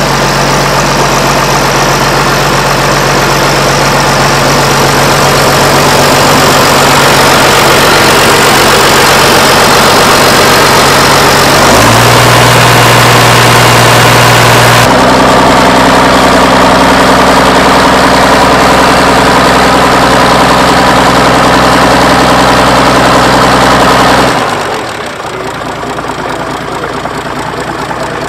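International 826 tractor's six-cylinder engine running steadily at idle. It speeds up in two steps, about twelve and fifteen seconds in, then the steady engine note stops about twenty-four seconds in.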